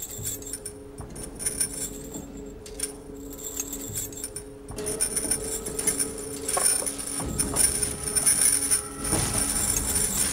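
Iron ankle shackles and chains clinking and jangling as shackled prisoners get up and walk, the clinks growing busier about halfway through, over a low sustained music drone.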